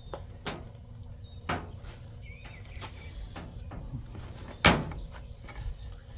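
Scattered clicks and knocks of hand tools and the cut power cord being handled, four of them, the loudest about three quarters of the way in, over a low steady hum.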